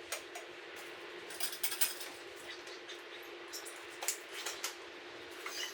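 A few light clinks and knocks of kitchen items being handled, over a steady background hiss and faint hum.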